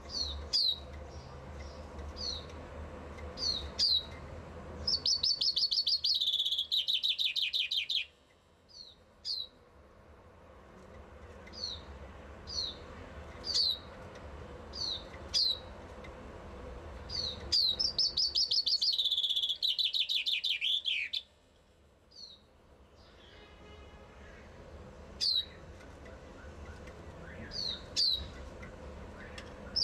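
Common chaffinch singing: two full song phrases, each a descending trill of about three seconds ending in a flourish, with short, sharp, downward-sliding call notes repeated between them.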